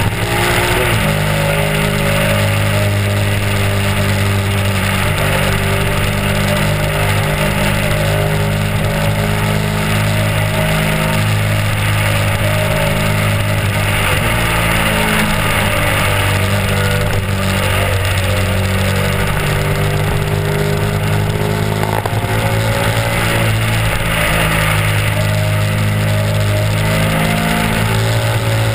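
Honda RC51's V-twin engine running at road speed under heavy wind rush on the microphone. The engine pitch falls about a second in and shifts down again around halfway through.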